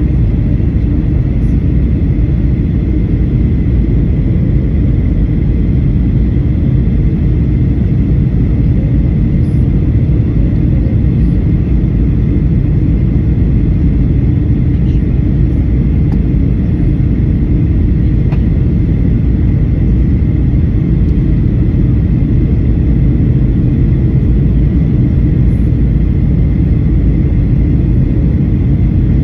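Steady cabin rumble of a Boeing 737 airliner on approach: engines and airflow heard from inside the cabin at a window seat, with a faint steady whine high above the rumble.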